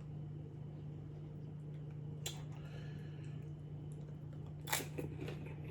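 Faint eating sounds from a man eating a chili cheese dog: a soft click about two seconds in and a short wet, crunchy burst near the end, over a steady low hum.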